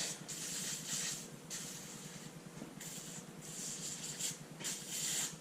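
Aerosol can of Sea Foam Deep Creep penetrating lubricant spraying in several short bursts of hiss onto the seized moving parts of an old cast-iron arbor press.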